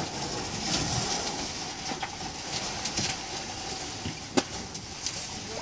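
Gusty wind rushing over the microphone, rising and falling, over a faint steady hum, with one sharp click about four and a half seconds in.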